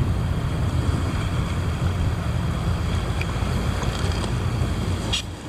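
Wind buffeting the microphone in a steady low rumble, over the wash of sea surf on the rocks. Near the end it dips briefly and there is a small click.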